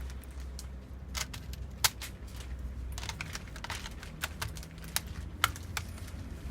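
Irregular small sharp clicks and taps of a screwdriver and screws as a laptop's case screws are driven back in, over a low steady hum.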